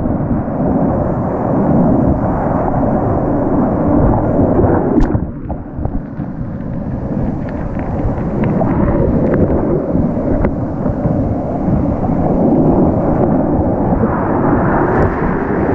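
Rushing whitewater on a mountain river, a loud, dense low rush of water and wind on the microphone. About five seconds in, the sound turns briefly muffled and quieter, then the rush builds back.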